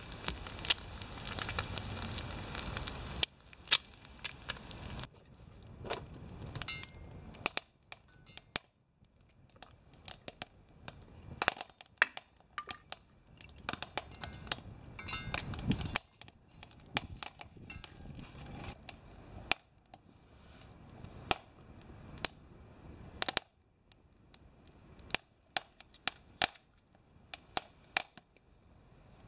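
Wood fire crackling in a steel rocket stove: small kindling sticks burning hard, with sharp irregular pops and snaps throughout.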